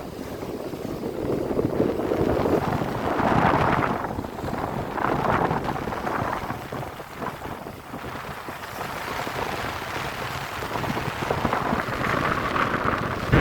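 Wind buffeting the microphone in rumbling gusts that rise and fall.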